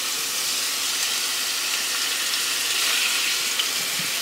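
Chunks of ground meat frying in olive oil in a shallow pan, a steady sizzle.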